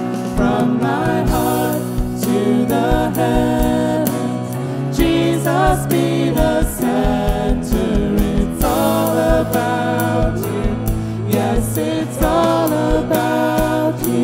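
Live contemporary worship band music: a drum beat under held bass and keyboard chords, with a bending melodic lead line on top.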